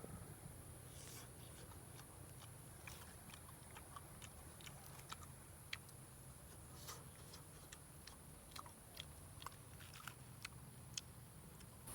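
A person chewing and biting food close to the microphone, with many small, irregular crunchy clicks.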